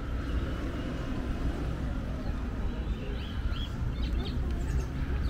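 Street ambience: a steady low rumble of traffic, with small birds chirping several times about three to four and a half seconds in.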